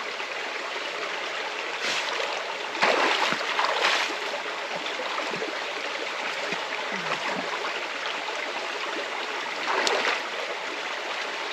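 River water flowing steadily, with louder bursts of splashing about three to four seconds in and again near the end.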